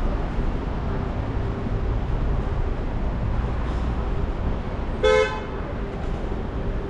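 Steady city street traffic rumble, with one short vehicle horn toot about five seconds in that is the loudest sound.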